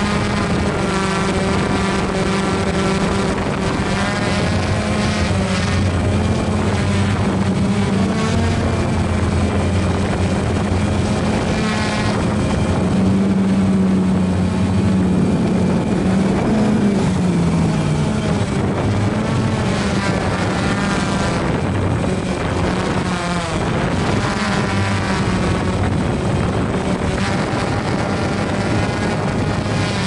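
Toro 48-inch zero-turn mower engine running steadily under load while mowing. Its pitch sags briefly about halfway through, then recovers.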